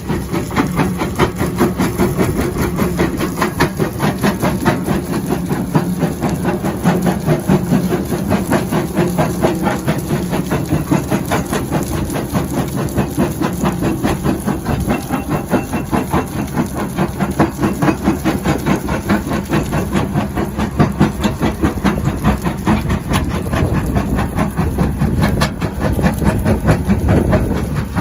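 Excavator running a double-shaft hydraulic crusher bucket: a steady, loud mechanical din with a fast, even pulsing.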